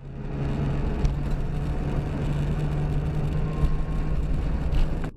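A car's engine and tyre noise heard from a dashcam inside the moving car: a steady low drone over road noise.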